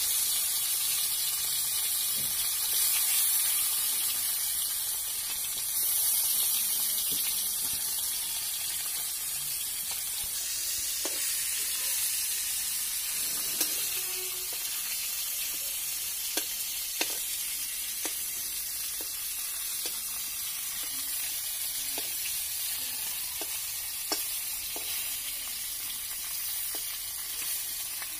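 Pieces of lata fish (spotted snakehead) frying in hot oil in a kadai, a steady high sizzle that slowly eases. From about halfway, a spatula clicks and scrapes against the pan as the pieces are turned.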